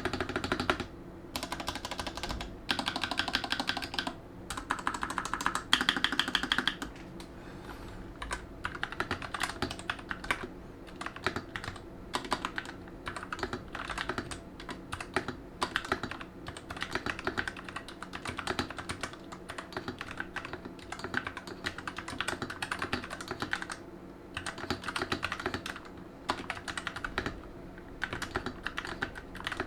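Typing on a Gamakay LK67 mechanical keyboard fitted with Outemu MX Black linear switches and Super Mario keycaps: a continuous run of key clacks, with a few short pauses between flurries.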